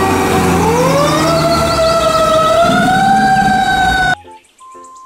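Fire truck siren wailing over the truck's engine rumble, its pitch sliding down a little and then climbing steeply about half a second in and rising slowly after. It cuts off abruptly about four seconds in, leaving only faint short beeps.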